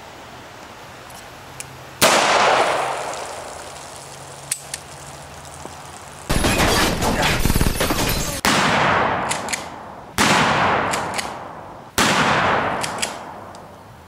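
9mm pistol shots: one about two seconds in, then a quicker string of at least four more from about six seconds on, each sharp report followed by a long fading echo.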